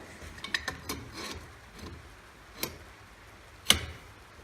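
Metal parts of a chainsaw mill's rail joining kit clicking and knocking as they are handled and fitted together. A run of small clicks comes first, then two sharp knocks, the second and louder one near the end.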